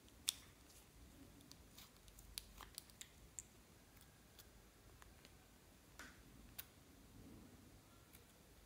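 Quiet, scattered clicks and snips from handling plastic lipstick tubes and small scissors cutting the lipstick tips off; the sharpest click comes about a third of a second in.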